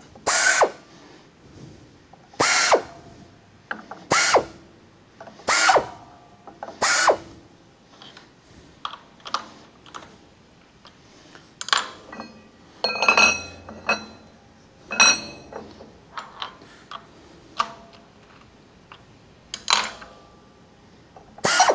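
Flex arm's drill chuck spinning a chamfering tool in short bursts against the edges of drilled holes in a steel ring: about five quick spin-ups with a rising whine, roughly every second and a half, chamfering and deburring the holes. In the middle come scattered clicks and scraping of a hand deburring tool on the steel, and two more short spin-ups near the end.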